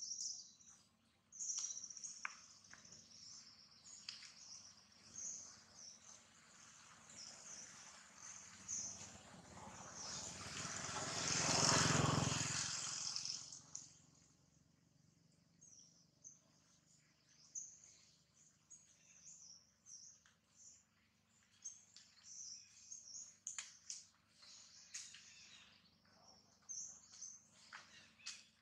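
Birds chirping and calling in many short high notes, with a broad rushing noise that swells up and fades away over about five seconds in the middle, the loudest thing heard.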